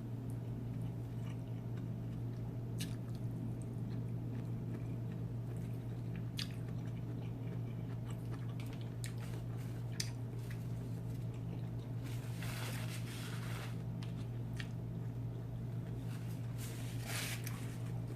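Person chewing and eating Chinese takeout noodles and fried rice, with scattered small clicks and two longer noisy eating spells about 12 and 17 seconds in, over a steady low hum.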